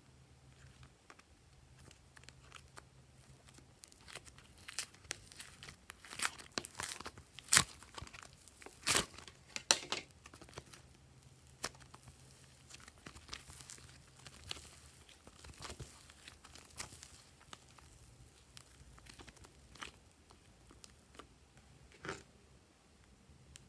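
Soft coloured clay being peeled from a plastic case and squeezed by hand: a run of crackling, tearing sounds, densest and loudest in the middle, then a few scattered crackles.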